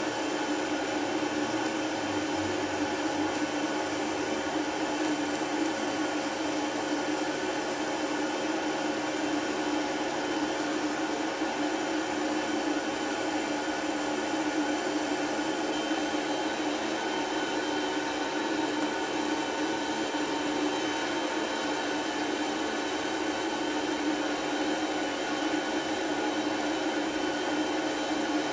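Fiber laser machine running while it cuts pendant shapes out of thin brass sheet: a steady, even hum and hiss with a constant tone underneath.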